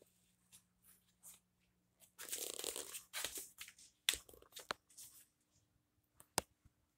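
Rustling handling noise, then a few sharp clacks as ceramic baking dishes are moved and set down on a granite countertop, the last clack sharpest, near the end.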